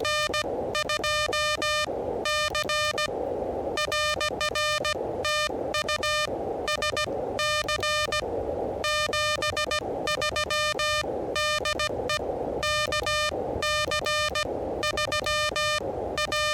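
Morse code from an Elecraft KH1 transceiver's speaker: a steady-pitched CW tone keyed in quick dots and dashes, over continuous receiver hiss.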